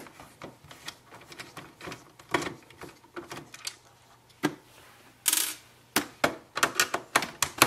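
Irregular clicks and taps of a screwdriver working small screws out of a printer's plastic casing, with a short rasp about five seconds in and a quicker run of clicks near the end.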